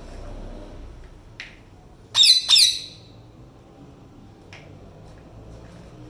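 Indian ringneck parakeet giving two harsh squawks in quick succession about two seconds in.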